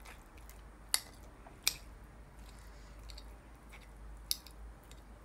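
A metal utensil cutting soft wet dog food in a ceramic dish, with a few sharp clicks where it strikes the dish, about one second in, again soon after, and near the end.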